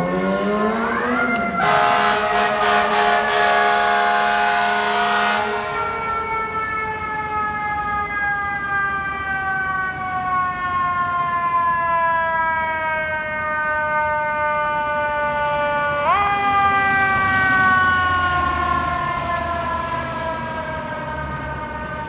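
Fire engine siren rising quickly, then a fire truck air horn blasting for about four seconds, after which the siren slowly falls in pitch for about ten seconds. About sixteen seconds in the siren rises sharply again and then slowly falls off.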